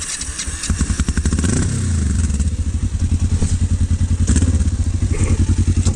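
Kawasaki KLE500 parallel-twin engine catching about a second in, with a short rev, then settling into a steady, evenly pulsing low-rev idle. A couple of knocks are heard from the bike near the end.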